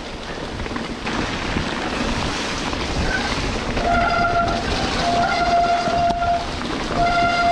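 Wet mountain bike disc brakes squealing with a steady, horn-like pitch three times in the second half as the rider brakes on the descent. Rain, wind and tyres on the wet trail make a constant rush underneath.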